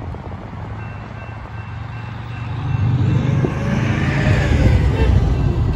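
Road vehicles driving past a railroad grade crossing, the tyre and engine noise of one passing close building to a peak about four to five seconds in. A faint steady high tone starts about a second in: the crossing's warning bell as the signals activate.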